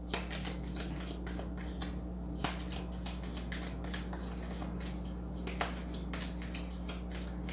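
Tarot cards being shuffled by hand: a run of soft flicks and clicks, with a few sharper snaps, over a steady low hum.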